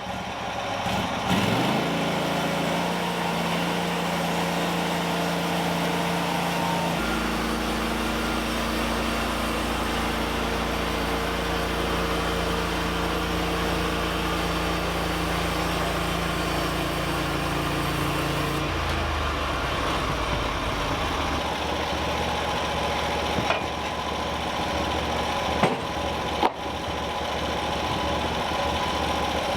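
Gas engine of a sawmill starting and running at a steady speed. About 18 seconds in, the steady tone gives way to a rougher, noisier sound with a few sharp knocks.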